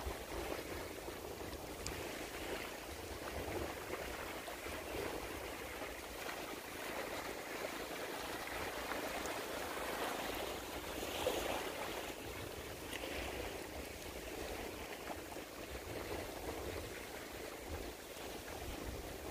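Water lapping and washing at the bank in a steady rush that swells and fades every few seconds, over a low rumble, with one louder swell about eleven seconds in.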